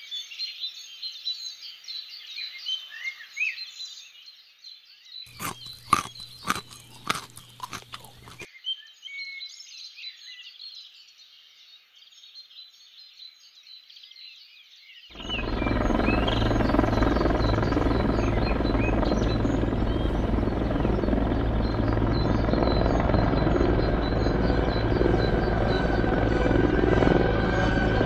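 Garden birdsong in the background, with a quick run of clicks over a low hum about five to eight seconds in. Then, about halfway, a loud, steady, low buzzing drone starts suddenly and keeps going: a ladybird's wings as it takes off and flies, carrying a walnut.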